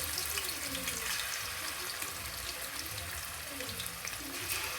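Chicken breast pieces frying in hot oil: a steady sizzle with scattered fine crackles.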